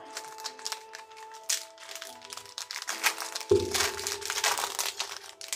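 Crinkling of a Pokémon booster pack's foil wrapper as it is handled and opened, in irregular crackles, over background music.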